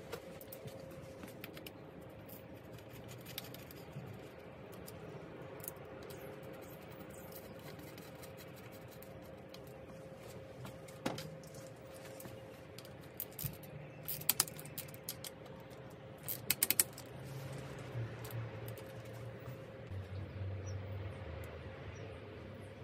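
Scattered light clicks and taps of bicycle parts being handled, with two clusters of sharper clicks in the second half, over a faint steady hum.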